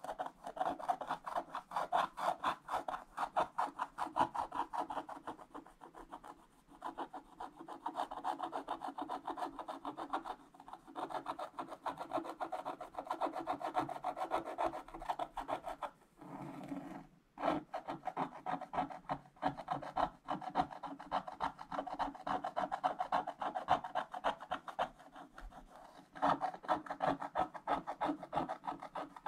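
Wooden scratch stylus scraping the black coating off a scratch-art sheet in quick, dense little strokes, with short pauses. A smoother rub comes about halfway through.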